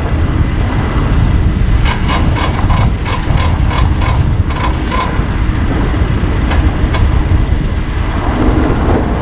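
Heavy truck engine running steadily with a low rumble. About two seconds in comes a quick run of around a dozen sharp clicks, some four a second, lasting about three seconds, then two more clicks a moment later.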